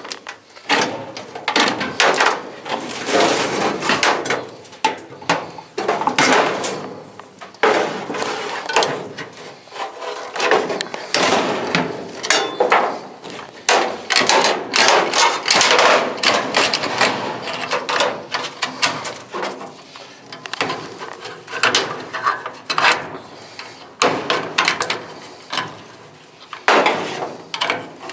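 Irregular metal clanks and knocks as an old furnace is pried and broken apart by hand for scrap.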